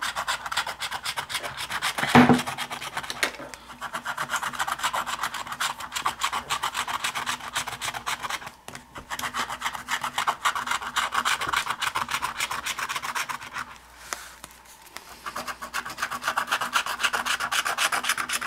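Scratch-off lottery ticket being scratched: rapid rasping strokes across the coating, pausing briefly twice. There is a louder thump about two seconds in.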